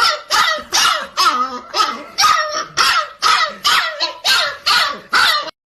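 A puppy barking over and over in a fast, steady series of high-pitched barks, about two a second, that stops abruptly near the end.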